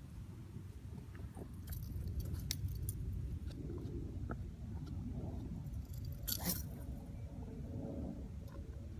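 Light metallic clinks and rattles, scattered and irregular, with a louder jangle about six seconds in, over a steady low rumble.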